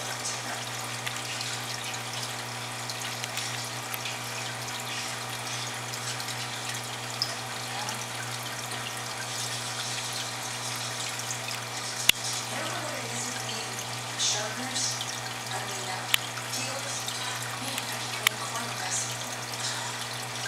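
Aquarium filter running: steady trickling, bubbling water over a steady low hum, with a few sharp clicks, the loudest about twelve seconds in.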